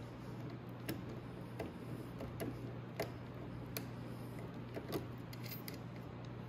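Light, scattered clicks of pliers turning the brake-cable adjuster at an ATV's handlebar lever, tightening the front drum-brake cable, over a steady low hum.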